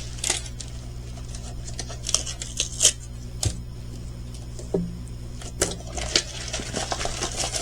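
A diamond painting kit and its packaging being handled: scattered soft rustles and small clicks, over a low steady hum.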